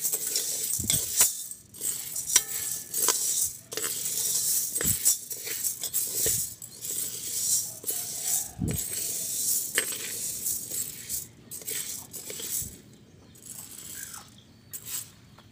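Dry mung beans rattling and scraping against the side of a metal pot as they are stirred with a metal spoon, a busy rustle full of small clinks, while they are dry-toasted. The stirring eases off and goes quieter in the last few seconds.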